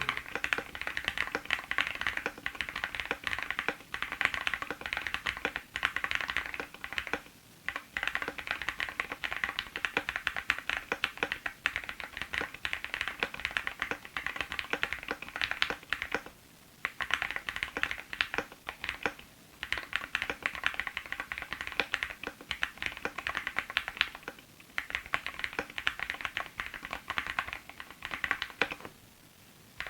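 Typing on an iQunix ZONEX 75 mechanical keyboard, fitted with foam-dampened PuYu switches (POK plastic housings and stems, 37 g) and ABS keycaps. It is a dense, fast run of keystroke clacks, broken by a few short pauses.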